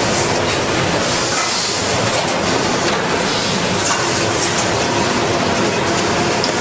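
Steady din of a hall full of running LEGO brick injection-molding machines: a dense, even hiss with faint steady hums and a few scattered clicks.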